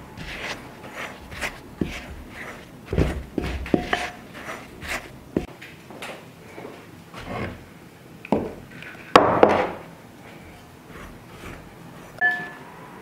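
Wooden spoon stirring flour in a stoneware mixing bowl: soft scrapes and repeated knocks of wood against the glazed bowl. About nine seconds in there is a louder clatter, and near the end a short ringing clink.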